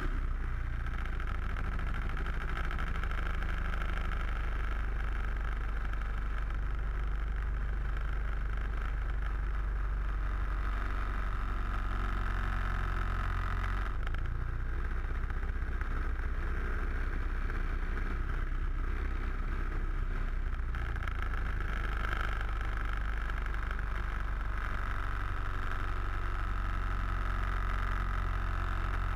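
Piston engine and propeller of a small single-engine aerobatic plane running steadily in flight, with its note shifting slightly as power changes partway through.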